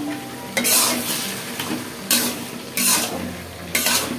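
A metal spatula stirs chopped bottle gourd curry in an aluminium karai, about four scraping strokes through the sizzling pan. It is mixing in the roasted cumin powder and salt just sprinkled on top.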